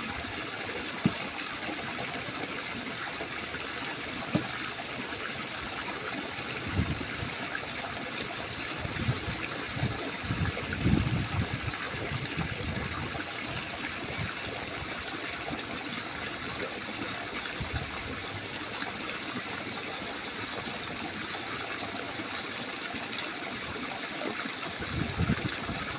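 Steady rush of running water, with a few soft low thumps near the middle.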